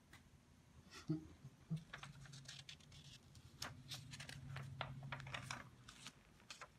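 Pages of a picture book being handled and turned: a faint run of small paper clicks and rustles, busiest as the page is turned.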